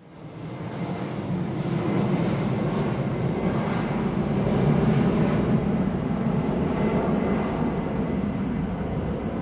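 Jet airliner engines rumbling steadily, fading in over the first second.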